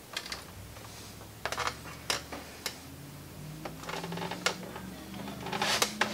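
Kitchen knife tip tapping and scraping on the heat-warped plastic case of an Xbox 360 console: scattered light clicks and scratches, a few close together near the end, over a faint low hum.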